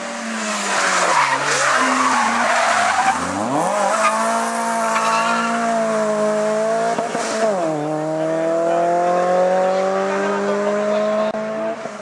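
Renault Clio hillclimb car's engine at high revs: the pitch falls as it slows for a bend, with a short tyre squeal about a second in, then climbs steeply as it accelerates hard. A quick gear change comes about seven and a half seconds in, and the revs climb again after it.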